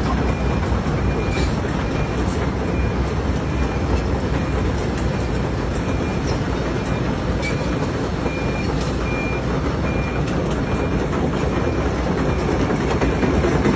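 Heavy earthmoving machinery running steadily with a loud diesel rumble, while a reversing alarm beeps at an even pace in the background.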